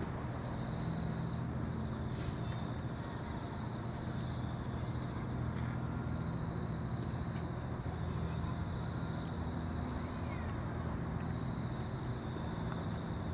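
Outdoor ambience: insects chirring steadily in high-pitched phrases, over a low, steady rumble.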